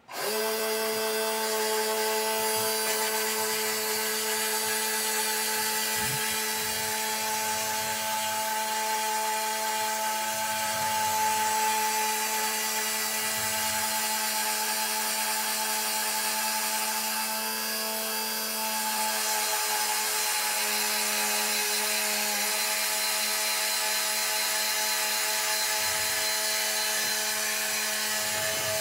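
Electric motor and gear train of an RC truck running at a steady speed with a constant whine. It starts suddenly, and the pitch sags slightly for a couple of seconds partway through.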